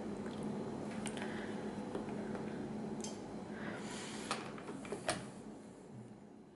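Quiet room tone with a faint steady hum and a few soft, separate clicks, fading out near the end.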